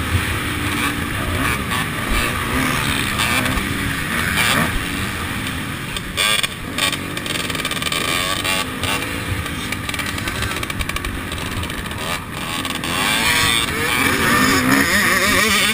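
Motocross bike engine heard from on board, its pitch rising and falling as the throttle is opened and closed, with a few sharp knocks.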